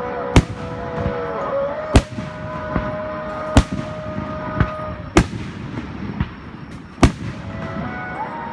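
Aerial fireworks bursting: five loud sharp bangs about a second and a half apart, with fainter pops between them, over background music with long held notes.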